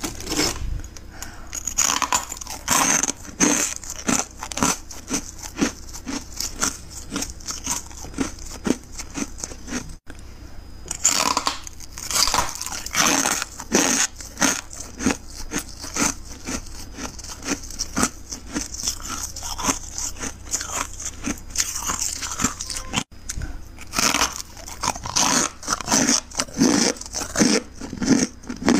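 Freezer frost crunching as it is bitten and chewed, close to the microphone: a dense run of irregular crisp crunches, broken by two short gaps.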